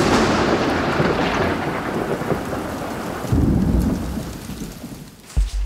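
Thunder with rain: a sudden crack that rolls away over a few seconds, a second low rumble about three and a half seconds in, then the storm dies down.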